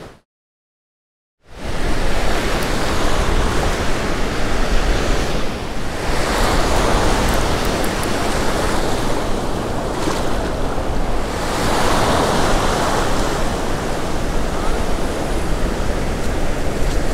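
Ocean surf breaking and washing up the beach, a steady rush that swells louder twice as sets of waves come in; it starts suddenly after a second and a half of silence.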